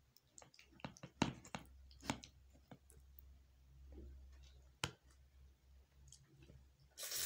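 A serving spoon knocking and scraping against a plastic bowl and plate as chicken gravy is spooned onto rice: a scatter of light clicks, with a few sharper knocks in the first two seconds and one more about five seconds in.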